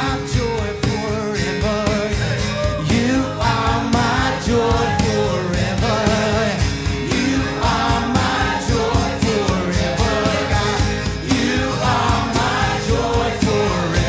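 Live worship band music: a singer's voice with vibrato over instruments and a steady beat.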